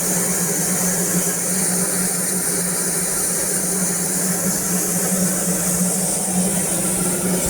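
Darjeeling Himalayan Railway steam locomotive with a steady hiss of steam over a low, even hum.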